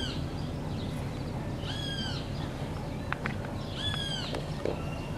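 A bird giving a short, clear call, repeated about every two seconds.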